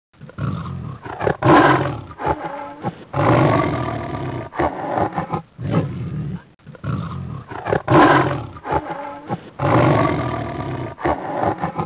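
Deep roaring growls of a big cat in long bouts, the same pattern of bouts coming round again about six seconds later.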